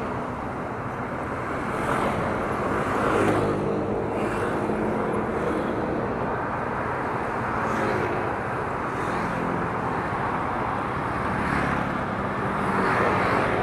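Motorcycle riding in traffic: a steady engine hum under wind and road noise on an action camera, with other traffic passing.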